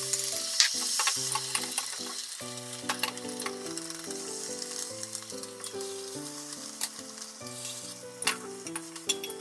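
Beaten egg sizzling in a hot rectangular tamagoyaki pan, loudest as the egg is poured in and again near the end, with sharp clicks of chopsticks and a spatula against the pan as the omelette is spread and rolled. Soft background music plays a melody underneath.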